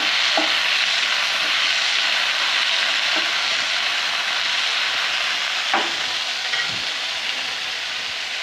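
Onion, tomatoes and whole spices sizzling steadily as they are sautéed in hot oil in a pan, with a few light knocks of the stirring spoon against the pan.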